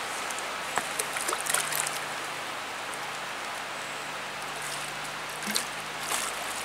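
Steady rush of a shallow creek flowing over rocks, with a few brief splashes from a hooked brown trout thrashing at the surface near the bank, about a second in and again near the end.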